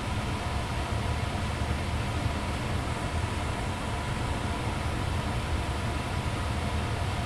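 2002 Ducane gas furnace's blower fan running steadily with a low rumble and a faint steady hum over airflow hiss.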